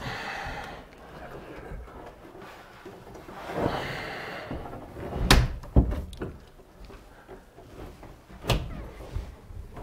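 Heavy beech butcher-block countertop being set down and shifted into place on wooden base cabinets: a rubbing slide about four seconds in, then sharp wooden knocks, two close together after about five seconds and one more near the end.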